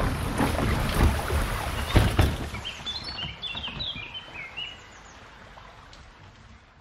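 Bicycle and trailer wheels splashing through a shallow stream, with a few knocks, for the first couple of seconds, then fading. A songbird gives a quick run of high chirps in the middle.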